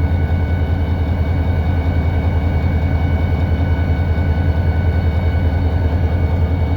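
EMD SD40-2 locomotive's 16-cylinder two-stroke turbocharged diesel running steadily, heard from inside the cab: a deep even drone with a fast pulse and a steady high whine over it.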